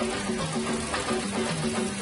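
Instrumental background music with a repeating run of short notes.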